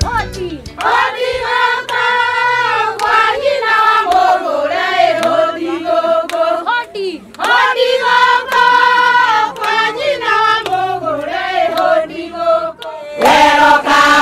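Vocal music: a group of voices singing a melody in phrases over a steady low bass line. About a second before the end it cuts to the noise of a crowd.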